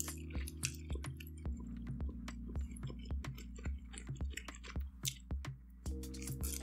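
A person chewing a mouthful of thick udon noodles close to the microphone: many short, wet clicks of chewing, over soft background music with a steady beat.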